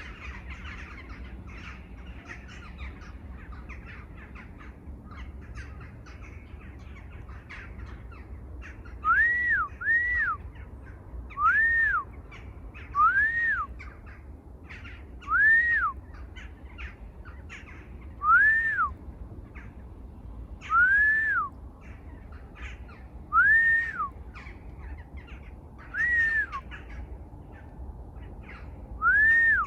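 A bird repeats one clear call about ten times, starting about a third of the way in and coming every two to three seconds. Each note rises and then falls. Behind it runs a busy chorus of fainter chirping from other birds.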